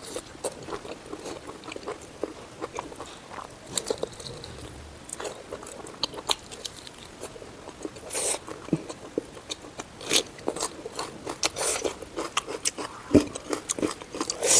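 Close-miked chewing and biting of pork curry with dry jute leaves, with many irregular wet mouth clicks and a few brief louder crunches.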